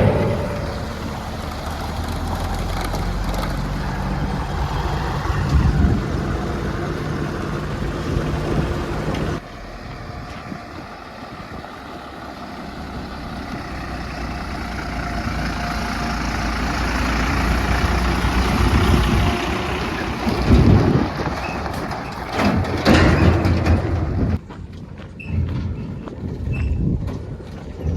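Heavy diesel machinery running: a JCB 3DX backhoe loader working beside a Tata truck during loading. The engine note shifts and rises, with a few loud knocks and clatters about two-thirds of the way through.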